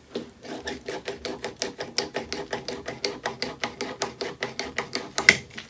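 Antique spiral push drill with a fluted bit pumped rapidly into a wooden bench top: a quick, steady run of clicking strokes as the spiral spins the bit, with one louder click near the end. The freshly repaired return spring is working very well.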